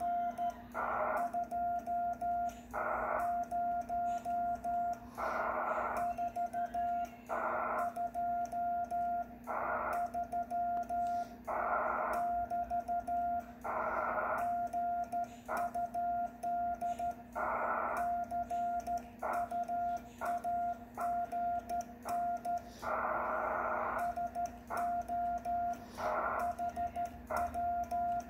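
Morse code sent on a 1963 Vibroplex Lightning Deluxe bug worked side-to-side as a sideswiper: a steady-pitched CW sidetone keyed in quick dits and dahs, with the key's contacts clicking. A steady low hum runs underneath.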